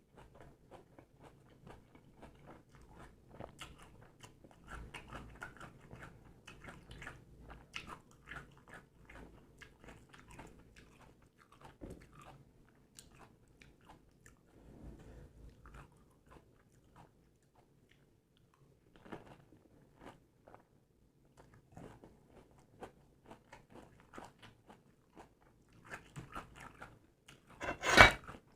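Close-up chewing of pani puri: the crisp puffed puri shells crunch between the teeth in many small crackles, with pauses between mouthfuls. A louder burst of crunching comes near the end.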